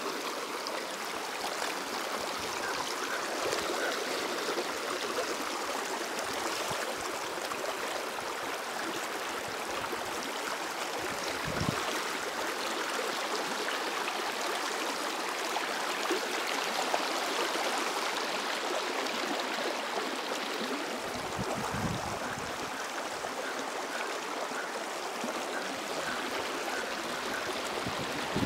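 Shalmala river water flowing over its rocky bed: a steady rush of running water.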